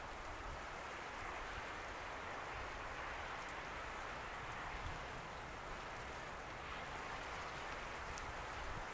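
Steady wash of choppy harbour water, small wind-driven waves lapping and splashing, with a low rumble underneath.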